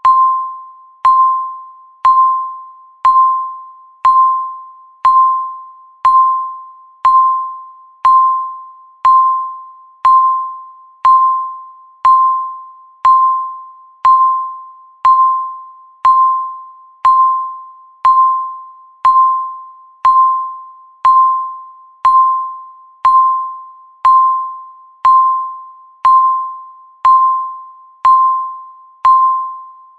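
Countdown timer beeping once a second: a single mid-pitched electronic tone that starts sharply and fades away before the next, repeating evenly.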